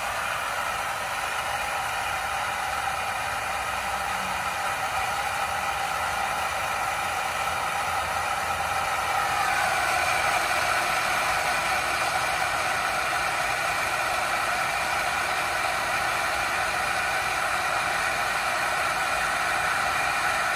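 Drummond one-horsepower shallow well jet pump running steadily with an electric motor whir, building water pressure in the system. Its tone shifts slightly and grows a little louder about halfway through.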